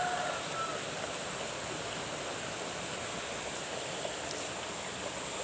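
Steady rush of running water, with a thin high-pitched whine held throughout and a brief faint call right at the start.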